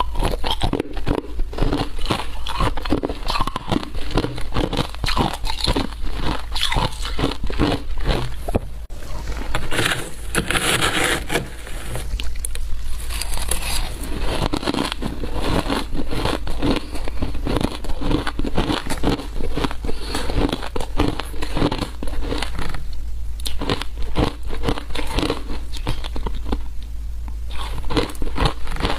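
Close-miked crunching of shaved ice being bitten and chewed, a dense run of crisp crunches throughout, with a metal spoon scraping through the ice in a glass tray.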